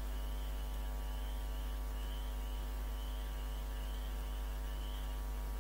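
Steady electrical mains hum, a low drone with evenly spaced overtones and a thin buzz above it, in the recording's signal.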